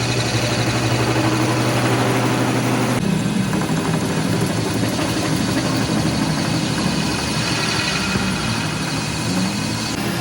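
Heavy machinery running steadily with a low, even hum. The sound changes abruptly about three seconds in, as if cut to a different machine or shot.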